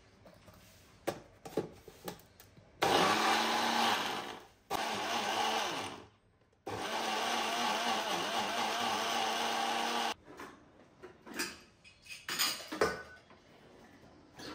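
Electric mixer grinder grinding raw spinach into a paste, run in three spells: two short runs of about a second and a half each, then a longer run of about three and a half seconds. Light clicks and knocks come before and after the runs.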